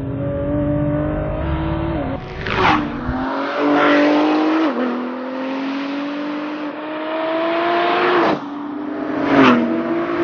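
Ford GT's twin-turbo V6 accelerating hard through the gears: the engine note climbs steadily and drops sharply at three upshifts, about 2, 4.5 and 8 seconds in. A few brief loud bursts of noise cut across it.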